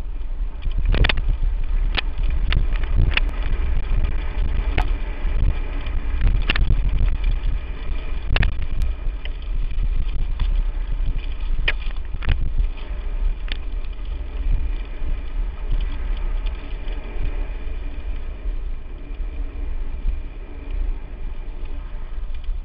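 Lapierre Spicy 516 mountain bike descending a rough trail at speed, with a steady rumble of wind on the microphone and repeated sharp knocks and rattles from the bike over the bumps, most frequent in the first half.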